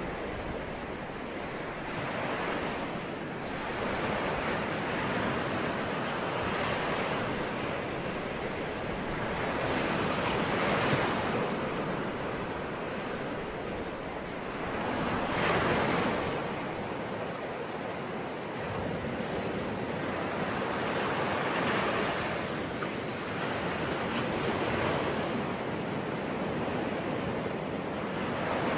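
Ocean waves breaking and washing on the shore, the surf swelling and falling back every few seconds in a continuous rush, with some wind.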